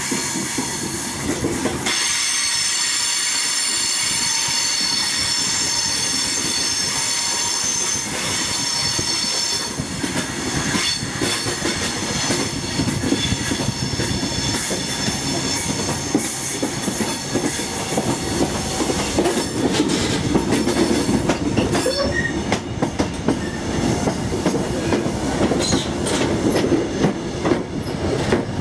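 HST passenger train's wheels running slowly on the rails, heard from on board. From about two seconds in to about ten seconds there is a steady high-pitched wheel squeal. After it comes a rhythmic clatter of the wheels over the track and a low rumble that grows louder near the end.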